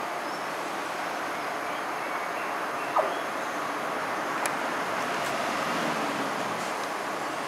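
Test train 950001, a diesel track-recording unit, running by on the rails: a steady rumbling wash of wheel and rail noise with a few sharp clicks, the strongest about three seconds in, swelling slightly in the second half.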